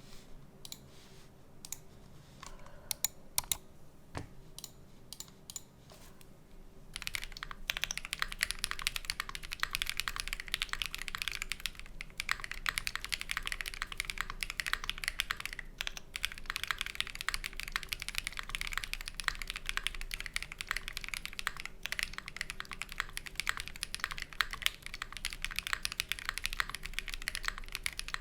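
Mechanical keyboard typing on an OwlLabs Mr. Suit with lubed Quartz switches and GMK keycaps: a handful of separate keystrokes at first, then fast continuous typing from about seven seconds in.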